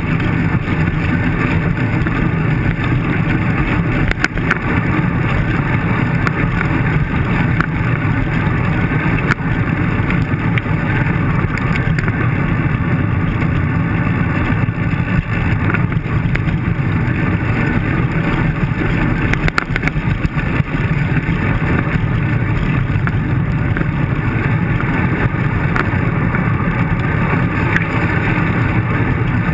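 Steady rumble of wind and road vibration on a bicycle's handlebar-mounted camera riding a rough road, mixed with the engines of nearby traffic. A few sharp knocks come through, several of them around the middle.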